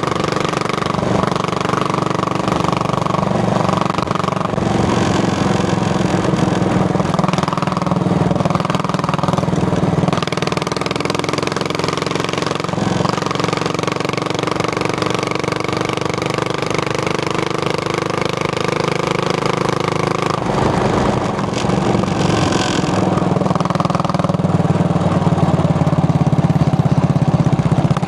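Yamaha SR400 single-cylinder engine and exhaust while riding, running steadily with a short break in the engine note about two-thirds of the way through, as at a gear change or throttle lift, then pulling again and growing a little louder near the end.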